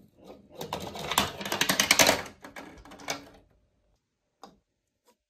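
A glass marble rattles through a plastic marble run in a fast run of clicks and clacks that builds up for about two seconds. It is followed by a louder single clack and, a little later, a lone click as marbles settle in the plastic catcher at the end of the run.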